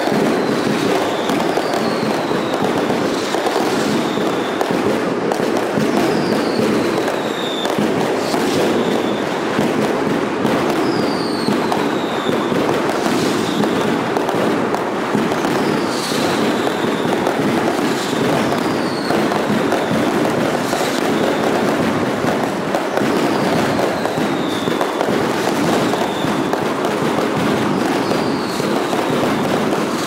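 Festival pyrotechnics at Las Fallas: a dense, unbroken crackle of firecrackers with scattered sharp bangs and whistling fireworks that fall in pitch, each whistle about half a second long, one every one to three seconds.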